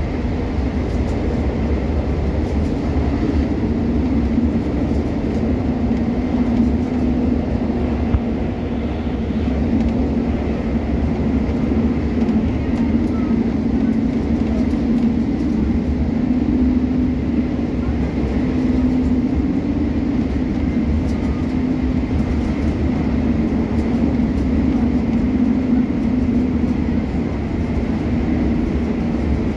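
Passenger train running at speed, heard from inside the carriage: a steady rumble with a low hum.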